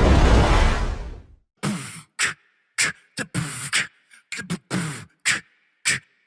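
A loud rushing noise that fades out about a second in, followed by a beatboxed beat: short mouth-made kick and snare hits separated by dead silence.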